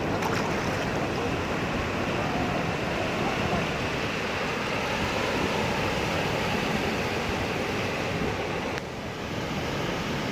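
Sea surf washing on the beach with wind on the microphone, a steady rush of noise that dips briefly near the end.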